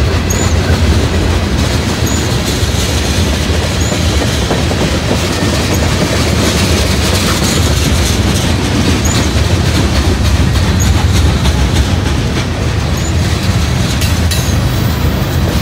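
Freight train's tank cars and covered hopper cars rolling past, their steel wheels clacking over the rail joints in a loud, steady rush.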